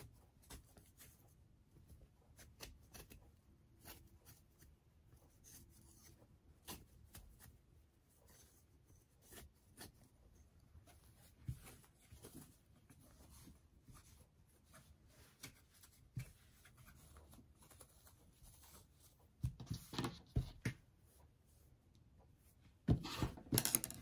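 Muslin fabric being handled: soft rubbing and small clicks as a sewn fabric piece is turned right side out and pushed out with a chopstick, then smoothed flat on a cutting mat. Two louder bursts of rubbing come in the last few seconds.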